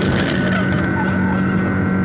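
Small boat's outboard motor running at a steady cruising speed, an even drone that holds one pitch.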